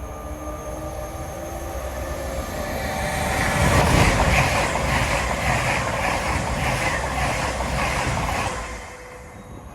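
Diesel express passenger train passing close at speed. Its noise builds to a peak about four seconds in, with an even beat of wheels on the rails at two to three a second, and falls away sharply near the end as the train clears.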